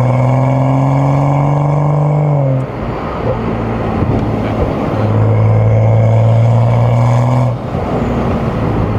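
BMW M235i's turbocharged N55 straight-six pulling at steady revs with the pitch creeping up, then going off throttle about two and a half seconds in. Engine note drops away to road and tyre noise, comes back on throttle at steady revs about five seconds in, and lifts off again near the end.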